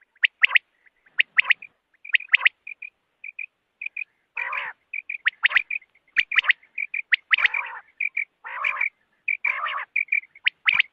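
Common quail calling over and over: quick, sharp falling notes in pairs and threes, broken by a harsher, raspy call four times.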